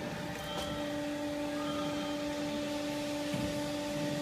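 CNC exhaust-pipe bending machine running with a steady hum and a higher whine over it.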